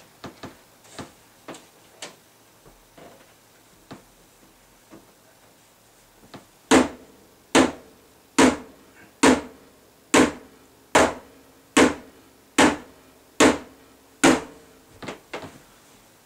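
A small hatchet striking a CRT television set: about ten hard, evenly spaced blows a little under a second apart, each with a short ringing clang. Fainter knocks come before the run of blows and a few lighter ones follow it.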